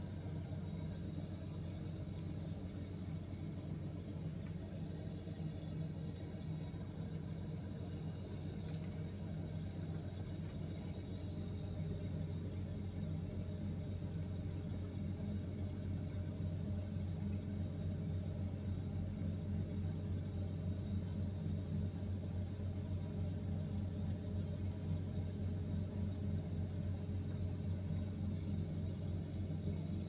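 Refrigerator running with a steady low hum, a little louder in the second half.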